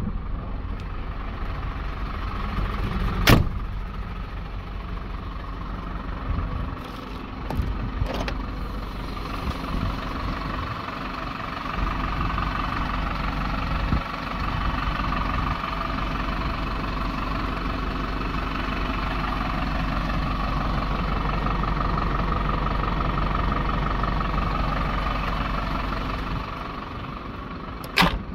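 MAN TGL 12.220 truck's four-cylinder diesel idling steadily. Two sharp bangs stand out over it, one about three seconds in and one near the end.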